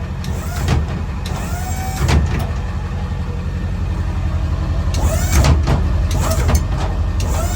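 Steel dump insert in a pickup bed rattling and clanking in a series of knocks, loose because a mounting bolt was never tightened down, over the steady low running of the truck's 7.3 Powerstroke diesel engine.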